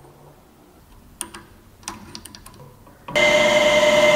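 A few light clicks as a rusty round-head bolt is handled on a wooden workbench. About three seconds in, a drill press comes in suddenly, running steadily with a hum and a whine as it spins the bolt in its chuck for sanding.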